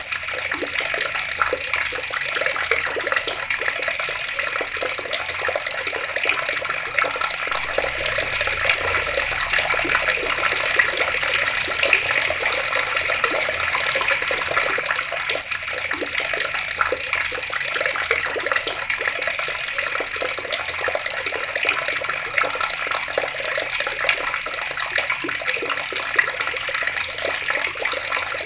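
Water tap running steadily, its stream splashing and gurgling without a break.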